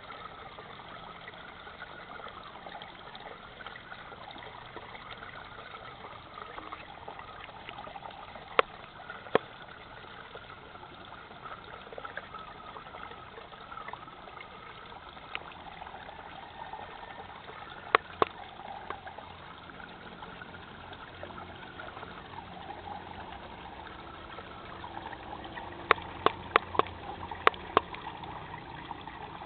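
Shallow irrigation stream trickling and flowing steadily, with a few sharp clicks, several close together near the end.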